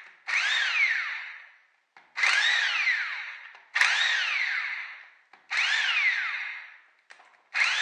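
Corded electric impact wrench spinning out the valve cover bolts on a BMW motorcycle engine. It runs in five short bursts, each a whine that rises as the motor spins up and falls away as it coasts down after the trigger is let go.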